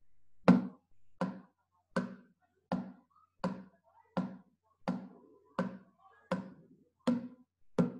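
Rigid plastic pot struck over and over with a kitchen utensil: eleven strong, somewhat low knocks, evenly spaced about three-quarters of a second apart, starting about half a second in.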